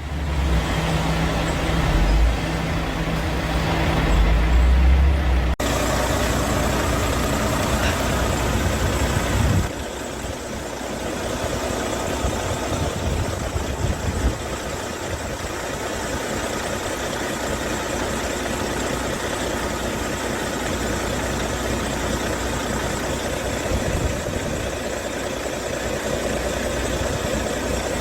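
Large dump truck's diesel engine idling steadily, with an abrupt change in the sound about five seconds in and another, softer one near ten seconds.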